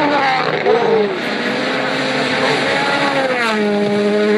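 Rally car engine running hard, its pitch sweeping up and down with the throttle and gear changes, with a clear drop in pitch about three and a half seconds in.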